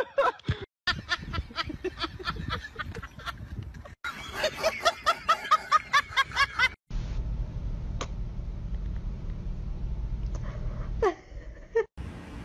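A person laughing in quick repeated bursts, followed by a steady low rumble lasting several seconds.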